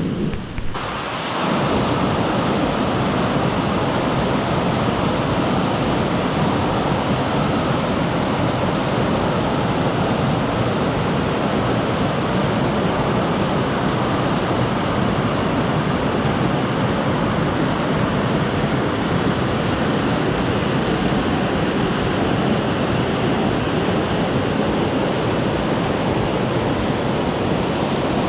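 Waterfall in full flow, swollen by rain: a loud, steady rush of falling water.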